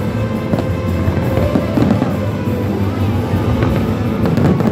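Fireworks display bursting in repeated bangs, with music playing throughout.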